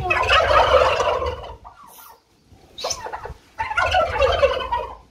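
White domestic turkey toms gobbling: two long rattling gobbles about two and a half seconds apart, with shorter calls from the flock between them.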